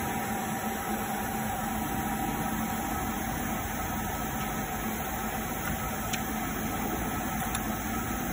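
Steady hum and hiss of a longitudinal seam-welding machine and its welding equipment running, with two faint ticks in the second half.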